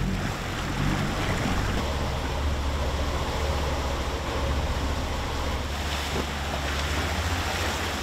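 Open-sea ambience aboard a sailing boat under way: a steady rush of waves and water, with wind buffeting the microphone as a low rumble that comes in about two seconds in.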